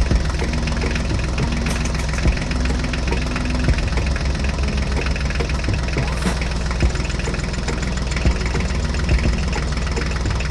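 Truck engine running at idle: a loud, dense low rumble with irregular knocks. It cuts in and cuts off abruptly.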